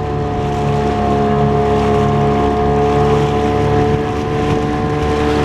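Small motorboat's engine running at a steady speed, a constant hum with a few fixed tones over a low rumble.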